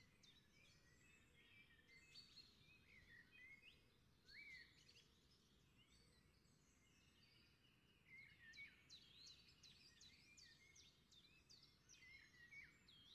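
Faint birdsong: small birds chirping and twittering with many short calls that sweep quickly up and down, scattered throughout over a faint steady hiss.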